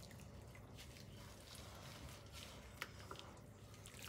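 Near silence: faint low room hum, with a few soft ticks in the second half.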